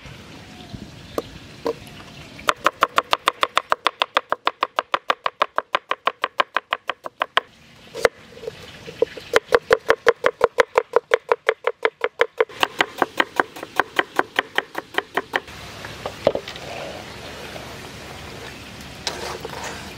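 Knife slicing red onions on a wooden chopping board: rapid, even knocks of the blade on the wood in three runs of a few seconds each, with short pauses between, then a few scattered knocks.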